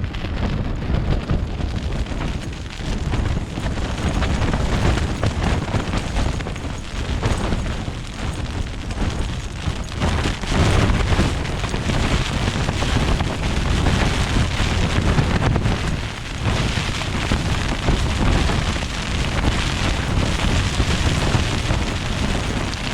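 Strong wind buffeting a tent from inside it: a loud, low rumble of gusts against the fabric and microphone that surges and eases every few seconds.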